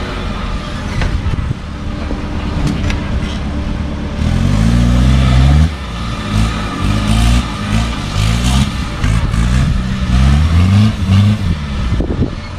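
Off-road 4x4 jeep engine revving hard in repeated bursts on a steep rocky slope, its pitch climbing and dropping every second or so.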